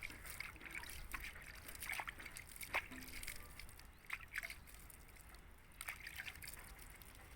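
Water trickling and sloshing faintly, with scattered light clicks and knocks.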